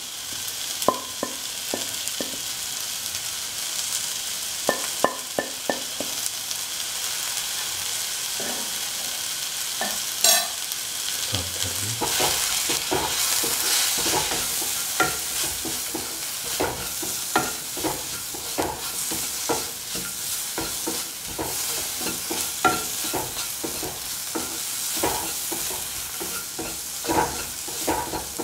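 Shallots, tomato pieces and ground spices sizzling in hot oil in a pan, a steady hiss, while a spoon stirs and knocks and scrapes against the pan many times.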